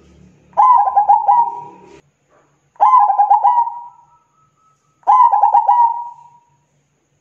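Zebra dove (perkutut) cooing: three phrases a couple of seconds apart, each a quick run of short, clipped coos.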